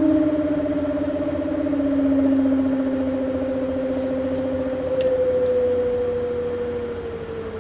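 Arctic Cooling BioniX F120 120 mm computer fan running with a loud hum, its tone slowly falling in pitch as it slows. The hum is much louder than expected for this fan, and the owner suspects a defect.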